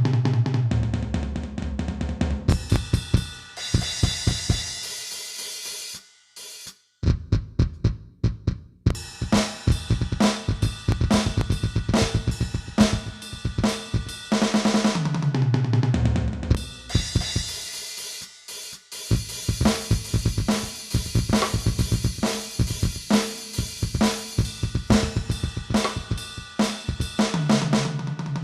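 Aroma TDX-16S electronic drum kit's module sounds being played: fast beats of kick, snare, hi-hat and cymbals, with tom fills stepping down in pitch near the start, about halfway through and at the end. The playing stops briefly about six seconds in.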